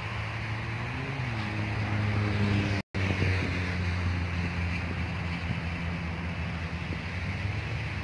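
A motor engine running with a steady low hum, its pitch rising and falling briefly about a second in, under wind noise on the microphone. The sound cuts out for an instant about three seconds in.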